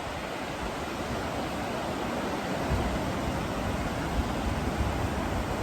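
Ocean surf breaking on the beach, a steady hiss, with a low rumble of wind on the microphone about halfway through.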